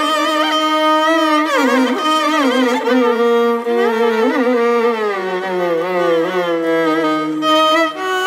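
Two violins playing a Carnatic kriti in unison in raga Shubhapantuvarali, the notes sliding and bending in ornamented gamakas. About five seconds in, the melody sinks to a low note and holds it.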